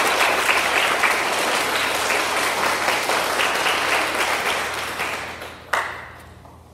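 Audience applauding, a dense patter of many hands that dies away about five seconds in. A single sharp knock sounds just as the clapping ends.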